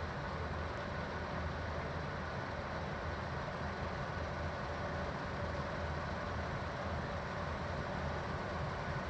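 Heavy farm machinery running steadily: an even engine drone with faint steady whines above it.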